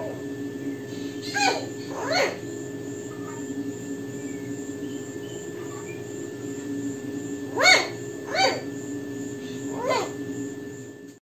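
Dog whining in five short, high cries, each rising then falling in pitch: two close together near the start, then three more in the second half, over a steady low hum.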